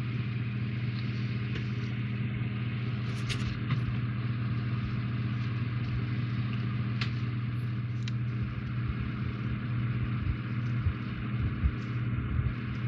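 A steady low hum, with a few light clicks and taps from plastic model parts being handled and fitted.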